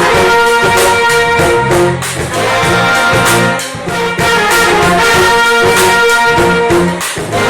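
Live band playing with horns holding long notes over bass and drums, in a jazz style.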